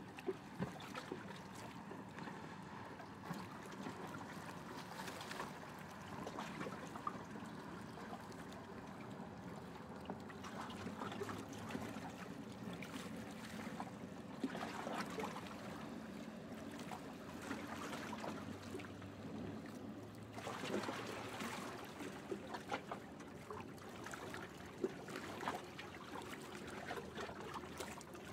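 Faint outdoor city ambience: a steady low hum, like distant traffic, with scattered light clicks and knocks.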